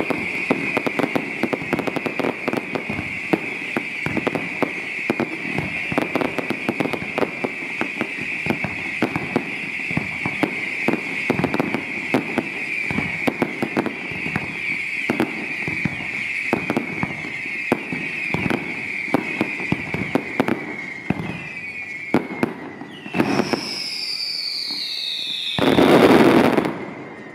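Fireworks display: a dense run of crackles and bangs over a steady high whistle, then a falling whistle and one loud, drawn-out blast near the end.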